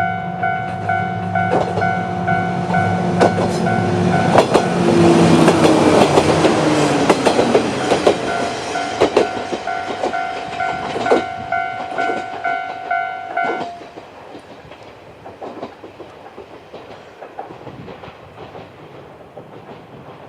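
A Japanese level-crossing alarm dings on and on while a two-car train of vintage KiHa 28 and KiHa 52 diesel railcars passes. The wheels clatter over the rail joints, and the diesel engine note falls in pitch as the train goes by. The alarm cuts off about fourteen seconds in, and the train's sound fades after it.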